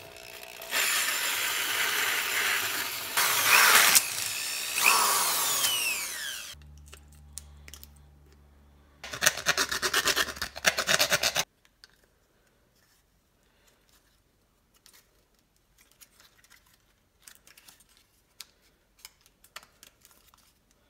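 A cordless drill with a hole saw cutting through a plastic speaker grille for about six seconds, its whine falling in pitch toward the end. A few seconds later comes a burst of rapid rasping strokes from a hand file smoothing the cut edge, and then only faint handling clicks.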